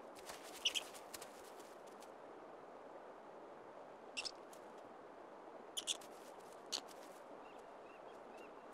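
White Arctic wolf hunting lemmings in the tundra turf: a few short, sharp squeaks and snaps, the loudest about a second in and two close together near six seconds, over a faint steady hiss.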